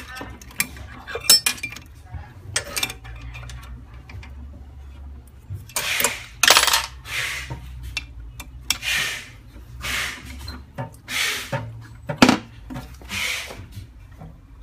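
Metal parts and tools clinking and rattling in a string of short, irregular knocks and scrapes as a black housing is taken apart by hand, over a steady low hum.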